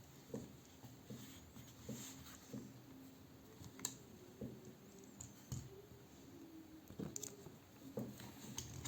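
Faint, scattered light clicks and taps, about a dozen, from small parts and tools being handled during tablet repair, over a faint low hum.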